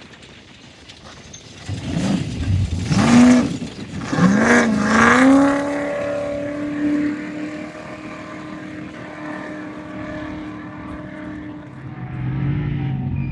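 Off-road race truck engine revving up hard twice, with a brief drop in pitch between as it shifts, then holding a steady note that slowly fades as the truck moves off. Near the end a second, deeper engine note comes in.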